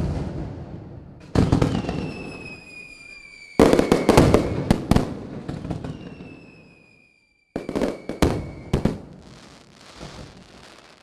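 Fireworks going off: several sharp bangs, each trailing off in a long rumble, with a patch of crackling in the middle and high whistles that slowly fall in pitch twice. The bangs come closer together near the end, three in about a second.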